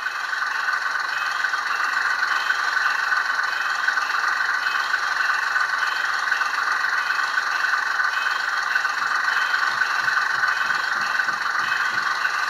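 ESU LokSound 5 sound decoder in a Hornby Sentinel model shunter, playing a high-revving diesel shunter engine idling through the model's small speaker. A windscreen wiper sound effect repeats steadily over the engine.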